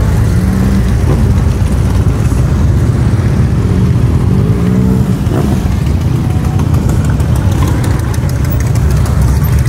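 Large touring and cruiser motorcycles riding slowly past one after another, their engines running at low speed in a loud, continuous low rumble. About halfway through, one engine note rises and falls as a bike is revved.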